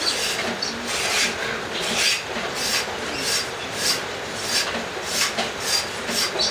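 Machete blades scraping and shaving down wooden bow staves by hand, a steady run of short rasping strokes coming a little under twice a second.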